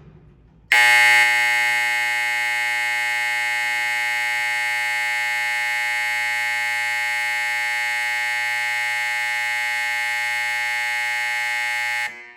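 Old Edwards fire alarm horn sounding a continuous, unbroken tone. It starts abruptly about a second in, loudest at the onset, holds steady, and cuts off sharply near the end.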